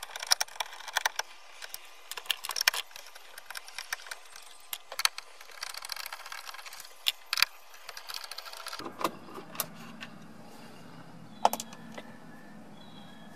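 Small irregular clicks and scrapes of a 7mm nut driver working out the screws that hold the plastic bezel around a dashboard touch screen.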